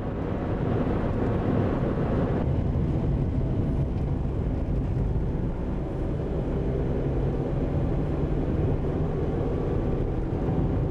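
Car driving along an open road, heard from inside the cabin: a steady rumble of engine and tyre noise. The hiss eases slightly about two seconds in.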